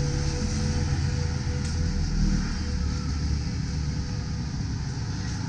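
Steady low hum of road traffic passing on a wide road, with a faint steady tone that fades out about halfway through.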